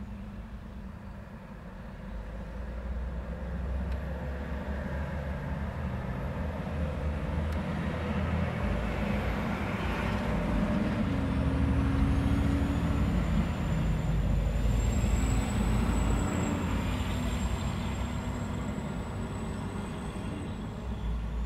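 Road traffic at an intersection: engine and tyre rumble that swells to a peak about halfway through and then eases. A thin high whine rises and holds through the second half.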